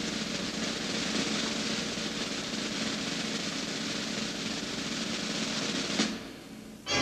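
Snare drum roll, steady and unbroken, ending in a single sharp accented hit about six seconds in.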